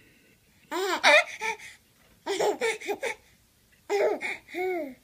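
Baby laughing in three short bouts of high squealing giggles, each about a second long with short pauses between.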